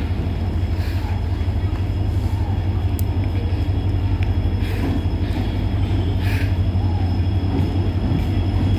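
WDP4D diesel-electric locomotive running with a steady low drone as it rolls slowly into the platform at the head of a passenger train, growing slightly louder as it nears. A few brief higher squeals come from the wheels.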